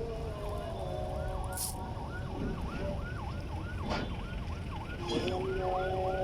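An emergency-vehicle siren yelping with quick rises and falls, about three a second, over the steady rumble of highway traffic.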